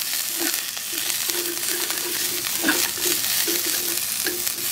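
Sliced onion, broccoli and bell pepper sizzling in a little oil in a hot stainless-steel frying pan, with a few light clicks of chopsticks against the pan as the vegetables are turned.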